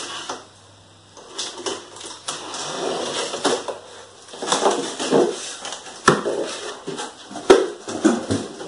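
A cardboard shipping box being opened by hand: irregular rustling and scraping of cardboard and packing, with scattered clicks and two sharper knocks, about six seconds in and a second and a half later.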